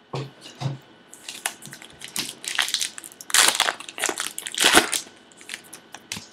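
A foil baseball card pack wrapper being torn open and crumpled, in crackling bursts loudest about three and a half and nearly five seconds in. Right at the start come two soft knocks of cards being set down on a wooden table.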